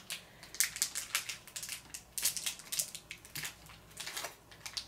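Irregular small clicks and crinkling as the screws supplied with a PC case are taken out of their packaging and handled.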